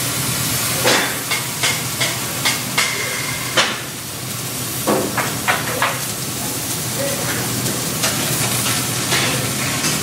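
Oxy-acetylene cutting torch hissing steadily as it burns through a thick metal plate, with a string of sharp pops and crackles through the first six seconds.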